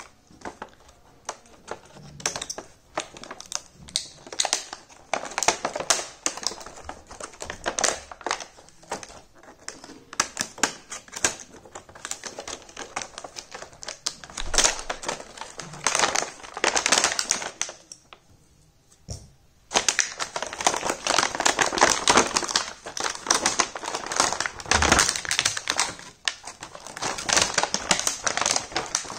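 Miniature plastic toy pieces and their packaging handled up close: rapid irregular small clicks and taps with crinkling plastic, a brief pause about two-thirds of the way through, then denser crinkling.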